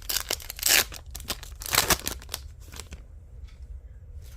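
Foil trading-card pack wrapper being torn open and crinkled, in a run of sharp rustling rips over the first three seconds, followed by a few light clicks as the cards are handled.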